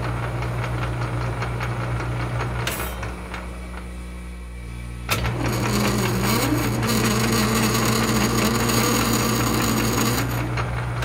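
Metal lathe running under power feed on a screw-cutting pass, its gear train humming with fine, regular ticking. About five seconds in there is a sharp click, then the lathe runs louder with a steady whine until near the end.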